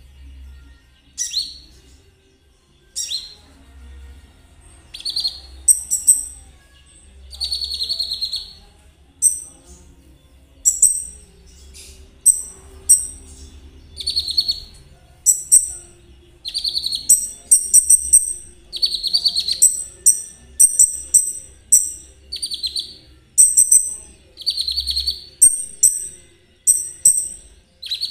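Kolibri ninja (Van Hasselt's sunbird) singing in the rapid 'trotol' style: short, high, rattling trilled phrases repeated every second or two, coming closer together in the second half.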